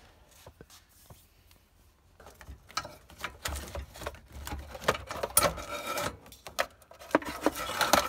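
Wiring harness and plastic connectors being tugged and handled under a stripped car dashboard: rustling, scraping and clicking. It is sparse for the first couple of seconds, then gets busier and louder.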